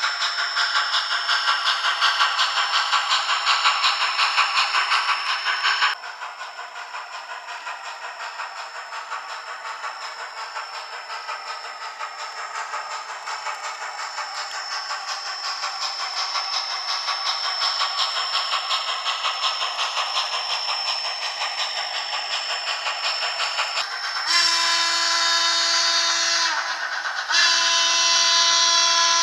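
Steam locomotive sounds from a Soundtraxx Tsunami2 DCC sound decoder in an HO scale N&W Z1a 2-6-6-2 model, played through its small speaker with no bass: a rapid chuffing exhaust hiss that drops sharply in loudness about six seconds in, then two long steam whistle blasts near the end.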